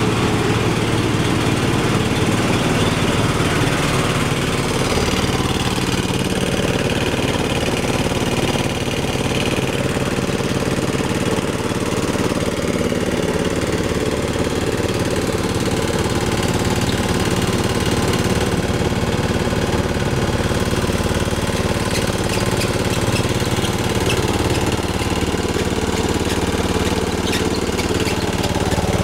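Small single-cylinder stationary engine running steadily, belt-driving a rice huller whose pulley is turning. Its speed is being set by hand at the engine's controls.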